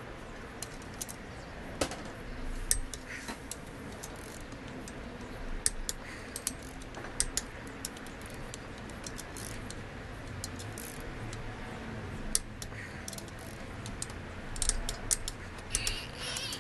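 Torque wrench ratchet clicking in short irregular runs as the main bearing cap bolts of a Honda B18 engine block are tightened down over the crankshaft.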